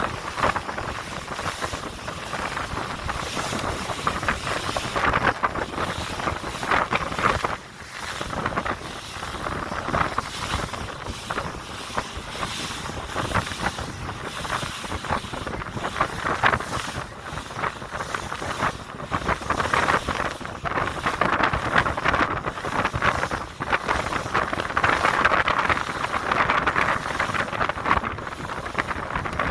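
Wind buffeting the microphone: a rough rushing noise that rises and falls in gusts, dipping briefly twice.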